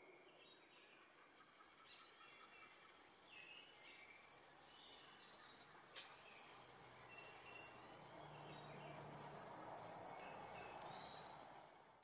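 Faint outdoor ambience: a steady high insect whine, with short scattered bird chirps and one sharp click about six seconds in.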